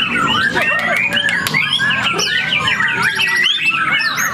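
Several white-rumped shamas singing at once, a dense overlapping chorus of varied whistled phrases and quick chirps, with a fast rattling trill a little after the middle.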